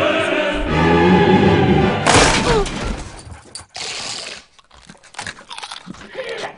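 Dramatic music, cut off about two seconds in by a loud crash as a door is smashed down. A few scattered thuds and knocks follow.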